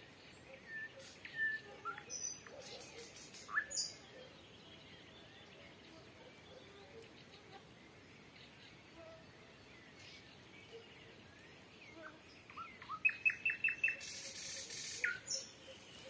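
Nightingale song: a burst of sharp whistles and clicks in the first few seconds, then a lull with only faint distant birdsong, and near the end a fast run of evenly repeated notes followed by a dry high rattle and one sliding note.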